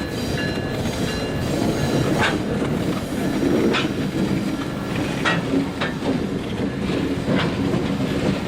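A train rolling past: a steady low rumble with a sharp wheel click over the rail joints every second or two.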